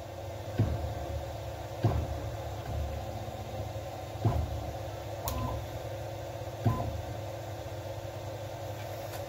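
Converted Grizzly G0704 CNC mill making short stepper-driven probing moves to find the edge of the stock: a steady machine hum with four sudden thumps, each trailing off in a short falling tone.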